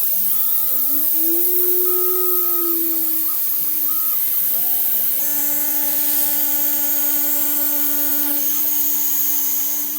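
DIY CNC machine milling aluminium: a motor whine that glides up in pitch over the first second or so, then holds steady with several tones, over the constant hiss of an air blast on the cut.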